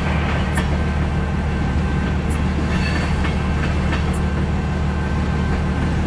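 Freight cars of a slow-moving CN mixed-freight train rolling past, heard from inside a car. A steady low rumble with a few faint clicks every second or two.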